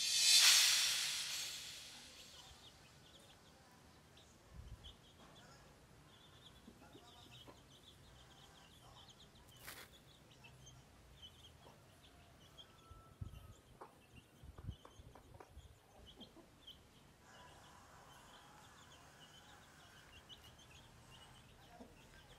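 Chicks peeping in short high chirps throughout, with a few soft knocks and taps midway. A loud rushing noise at the very start fades away over about two seconds.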